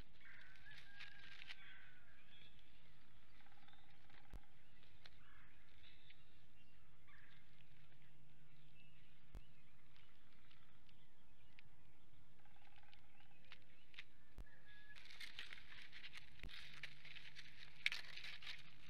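Bald eagles at their stick nest: faint bird calls come and go over a steady low hum, and about three-quarters of the way through a dry rustling and crackling of sticks starts as an eagle works at the nest material, with one sharp snap or click near the end.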